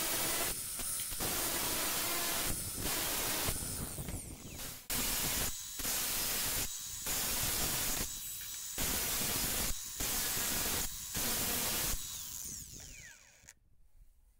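Cordless angle grinder cutting into a steel circular saw blade: a loud hissing grind over a high motor whine, with short breaks every second or so. Near the end it is lifted off and winds down with a falling whine.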